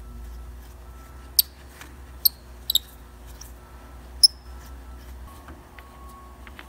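Short, sharp metal squeaks from a rusty parking brake lever knob as it is unscrewed by hand on its steel threads. There are four chirps, the third of them doubled.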